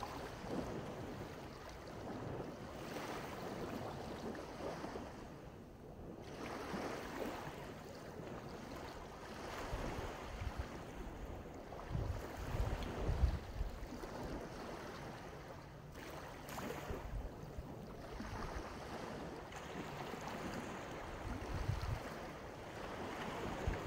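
Sea waves washing onto a sandy beach in repeated surges, with wind buffeting the microphone now and then.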